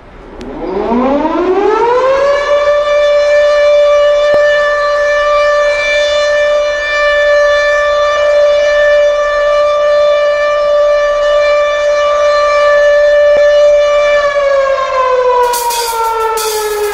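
Air-raid siren winding up over about two seconds, holding one steady wail, then winding down near the end. Drum and cymbal hits come in under the falling siren just before the band starts.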